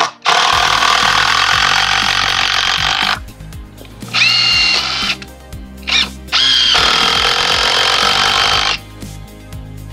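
DeWalt cordless drill driving screws into deck wood in several runs. A long run of about three seconds is followed by a short burst a little after four seconds, a brief blip near six seconds, and a final run of over two seconds ending near nine seconds. The motor's whine rises as it spins up. Background music plays underneath throughout.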